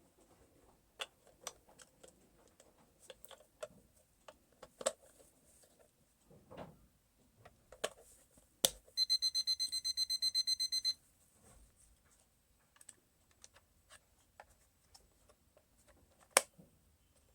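Digital alarm clock being operated: scattered clicks of its buttons being pressed, and about nine seconds in a rapid high-pitched electronic beeping, about eight beeps a second, that lasts about two seconds and then stops.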